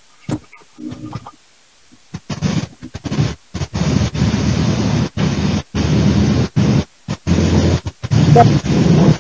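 Harsh, loud noise coming through a video-call connection. It starts about two seconds in and cuts in and out abruptly many times.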